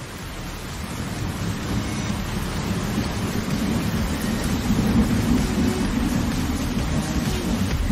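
Heavy rain falling through forest leaves, with a low, rolling rumble of thunder that grows louder through the stretch.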